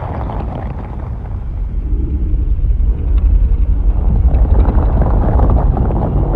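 Film monster sound effect: a deep, heavy rumble that starts abruptly and grows louder about three seconds in.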